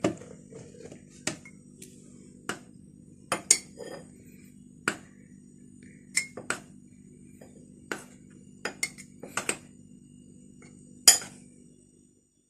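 A metal measuring cup clinking and knocking against a glass bowl and a plastic blender jug as flour is scooped up and tipped in. The sharp clicks come at irregular moments, with the loudest near the end, over a low steady hum.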